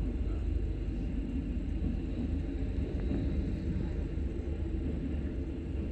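Green-painted conventional passenger train carriages rolling past a station platform: a steady low rumble.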